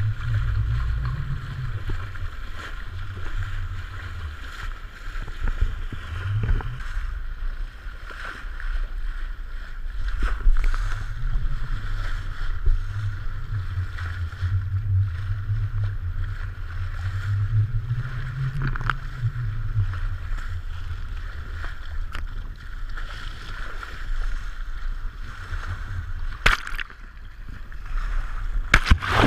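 Seawater rushing and sloshing over a GoPro as it skims along the ocean surface, dipping in and out of the waves, with a low rumble that swells and fades every few seconds. A sharp splash comes near the end.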